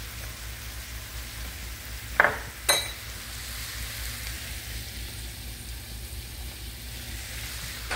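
Browned ground beef sizzling steadily in a cast iron skillet, with two short knocks a little over two seconds in.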